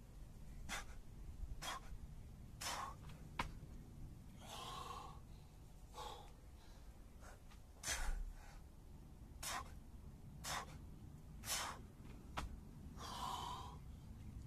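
Hard, fast breathing of a man in the middle of a burpee workout: short sharp breaths about once a second, with a couple of longer, heavier breaths. There is also a dull thump about halfway through.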